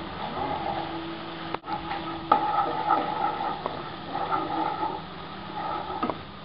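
Wooden spatula stirring and scraping through a thick onion-tomato masala in a nonstick pan while the masala sizzles. There is a brief dropout about a second and a half in.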